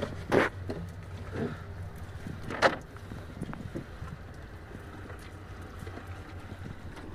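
Steady low hum of a boat engine running, with two short sharp noises, the louder one about two and a half seconds in.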